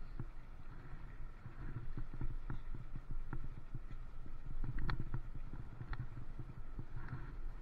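Bicycle and its handlebar-mounted camera rattling and knocking irregularly as the bike rolls over a rough lane, over a steady low rumble of the tyres. There is a sharper knock about five seconds in and another about a second later.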